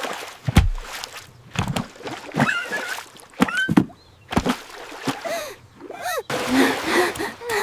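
Cartoon sound effects: a string of short squeaky cries that rise and fall in pitch, mixed with sharp knocks, and a noisy, splashy patch near the end.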